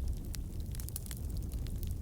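Wood fire crackling: irregular sharp pops and snaps over a steady low rumble of the burning.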